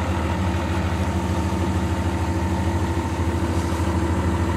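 John Deere 2054D excavator's diesel engine running steadily at an even speed, with no change in pitch or load.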